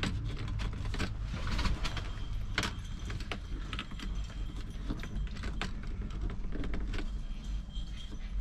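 Irregular small clicks, knocks and rattles of a plastic phone mount being handled and adjusted on a truck dashboard, over a steady low hum.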